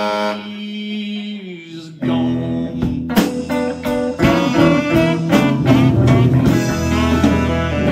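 Live blues-rock band playing: a single held note fades for about two seconds, then drums, bass and electric guitar come in together and the full band plays on.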